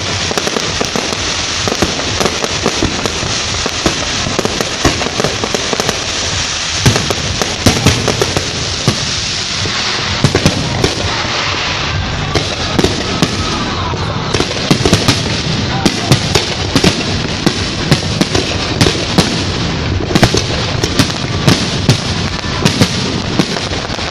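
Fireworks display: a dense run of sharp bangs, pops and crackling over a steady loud hiss, growing thicker about seven seconds in.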